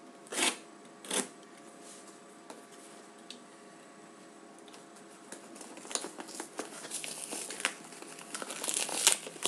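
A knife blade stabbing twice into a cardboard shipping box, close together, then from about six seconds in a growing run of crinkling and tearing as the box's packaging is pulled open by hand.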